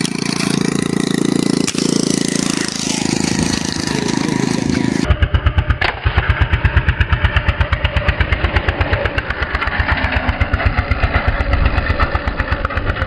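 Small motorcycle engine running with an even, fast low throb. The first five seconds hold a steady rumbling noise; after a cut about five seconds in, the engine's pulsing beat comes through clearly.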